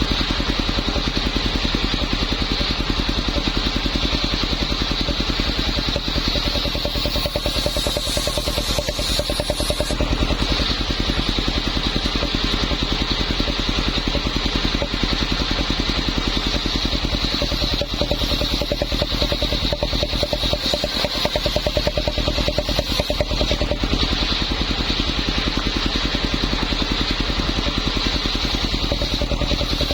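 Engine-driven circular saw running steadily: the rapid, even firing of a small engine, with a steady high whine over it.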